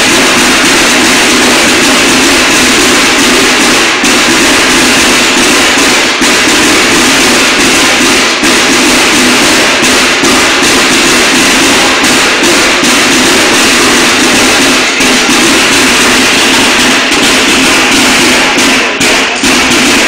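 Snare drum line of a Mexican banda de guerra playing a loud, fast, continuous cadence of rapid strokes, with a few short breaks near the end.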